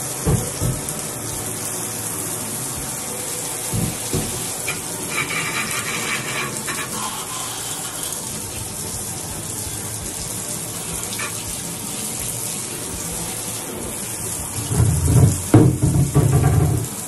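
Water running in a steady hissing stream, as when washing down a grill. A few knocks come through, with a louder burst of low knocking and rumbling near the end.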